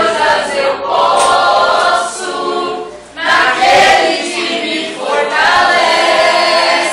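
A group of voices singing a worship song together in long phrases, with a short break about three seconds in.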